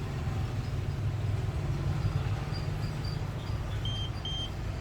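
Steady low background rumble, with two short high-pitched beeps close together near the end.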